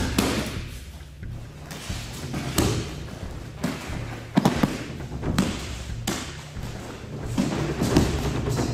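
Bodies slamming onto tatami mats as partners are thrown and take breakfalls in aikido practice: a run of irregular heavy thuds, with background music underneath.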